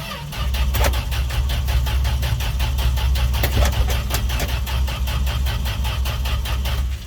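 Dodge D100 pickup engine cranking on the starter at an even beat of about five or six pulses a second, turning over without firing, and stopping near the end. It is a long-sat engine that won't catch despite fuel poured down the carburettor, cranked on a nearly flat jumper pack.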